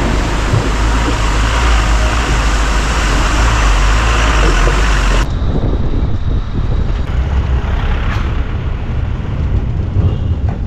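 Road and wind noise from riding in the open cargo bed of a moving truck: a dense rushing noise over a heavy low rumble of engine and tyres. The sound changes abruptly about five seconds in.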